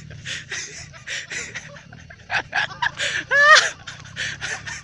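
Breathy, gasping human vocal sounds in short bursts, with one brief rising-and-falling cry about three and a half seconds in.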